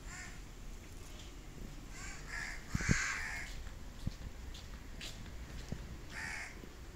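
Bird calling outdoors: several short harsh calls, the loudest about three seconds in.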